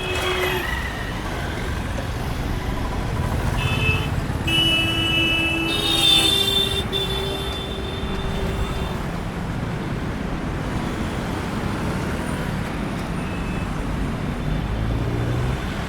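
Heavy vehicle engines rumbling steadily, with a few short horn toots in the middle.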